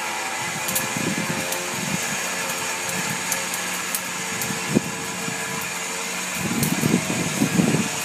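A felled shrub is dragged across the grass by a winch cable, its branches scraping and rustling and twigs cracking. Over it runs a steady motor hum. The scraping is heavier about a second in and again near the end.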